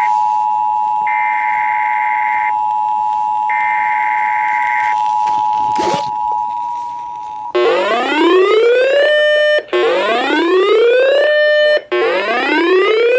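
Emergency Alert System signals. The steady two-tone attention signal runs under three screechy bursts of SAME header data, each about a second and a half long. About seven and a half seconds in, it gives way to a rising whoop alert tone that repeats about every two seconds.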